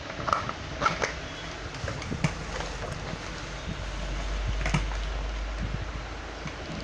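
A few sharp clicks and knocks of plastic and metal parts as a children's tricycle's rear wheel and plastic hub are fitted onto its steel axle, over a steady low hum.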